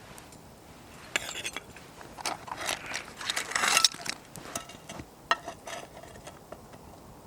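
Irregular small clinks, taps and rustling from camp cookware being handled, with a longer scraping rustle about three and a half seconds in.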